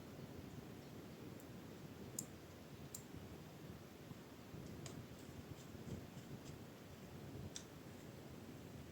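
About five sharp, scattered clicks over faint low room noise: small plastic and metal laptop parts and tools being handled during reassembly.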